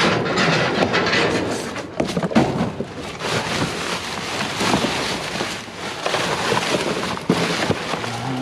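Rummaging through scrap metal and debris in a dumpster: a dense run of rattling, crinkling and knocks with no break.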